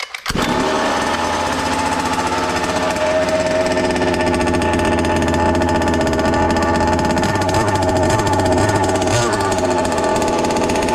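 Pull-start of a fifth-scale RC car's highly tuned, ported two-stroke gasoline engine, with no choke, catching almost at once. It then runs steadily through its custom stainless-and-silicone exhaust.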